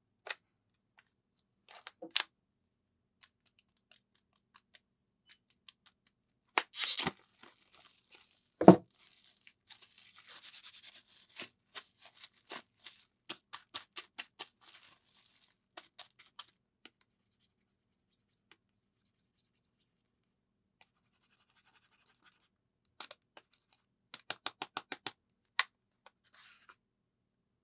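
Unboxing sounds from a small shrink-wrapped cardboard box: a utility knife slicing through the plastic wrap with a short tearing scrape, then a single low thump. Plastic film is crinkled and crumpled in the hands for several seconds, then after a quiet spell a quick run of about eight light clicks comes from handling the cardboard box.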